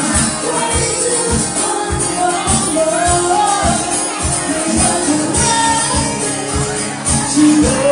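Live pop band music: a singer's voice carries the melody over a steady beat.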